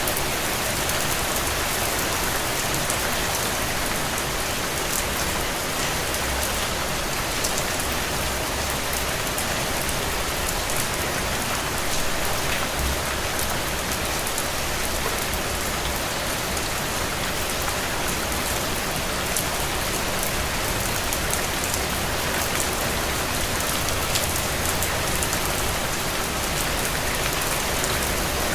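Steady rain falling on a window, a dense even patter with fine drop ticks and no thunder.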